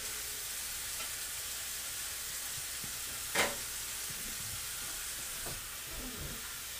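Chicken pieces frying in ghee in a hot pan, a steady sizzle that shows the pan is up to temperature. A single sharp knock or clink stands out about three and a half seconds in.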